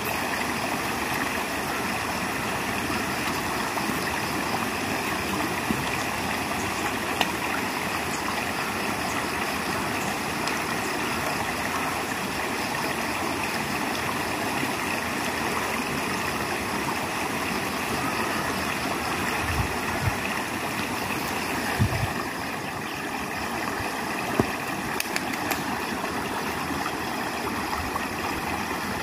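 Shallow river running over stones, a steady rushing of water, with a couple of brief low thumps about twenty seconds in.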